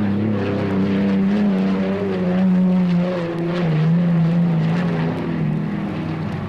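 An engine running steadily, its pitch wavering a little up and down.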